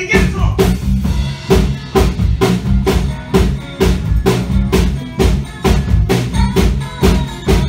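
Live band playing, the drum kit keeping a steady beat of kick and snare under a moving bass line and electric guitars.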